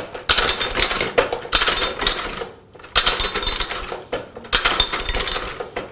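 Small tabletop hand-lever platen printing press (a Boston press) being worked stroke after stroke, each stroke about a second of metallic clattering as the inking rollers run up and down over the ink disc, spreading the ink evenly.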